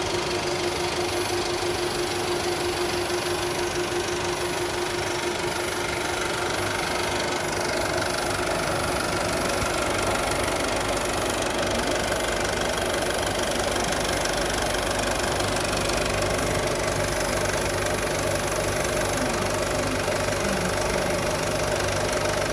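35mm film projector running steadily, its motor and film transport making a continuous mechanical whirr.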